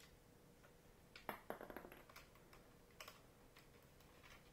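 Faint small clicks and scrapes of a plastic router case being handled while a small screw is taken out from under its rubber feet, with a cluster of clicks about a second in and another near three seconds.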